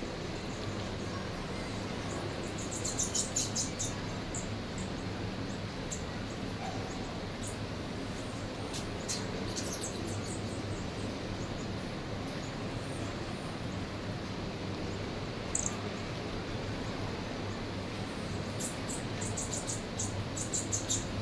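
Small birds chirping in short clusters of rapid high notes, several times, over a steady low background hum.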